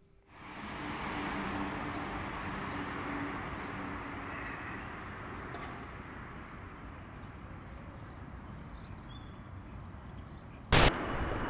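A steady rushing noise with faint high chirps above it, broken by one loud, short bang about a second before the end.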